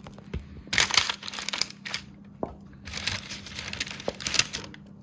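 Crinkling and rustling in two bursts of about a second each, with a few light knocks in between and near the end.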